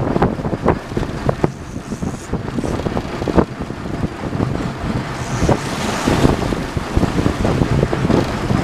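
Wind buffeting the microphone over the steady rumble of a sport-fishing boat's engine and the sea, with scattered knocks and a brief swell of rushing noise a little past the middle.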